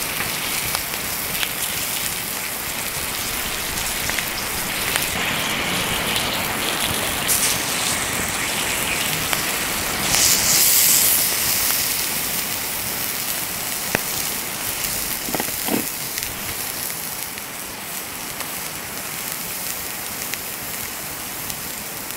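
Steaks sizzling on thin iron griddle plates over a wood fire, a steady hiss with a few sharp pops. It swells louder for about two seconds near the middle.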